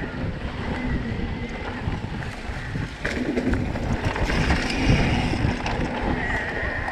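Mountain bike riding a bumpy dirt singletrack: wind buffeting the microphone over the rumble and rattle of the tyres and bike on rough ground, with scattered clicks.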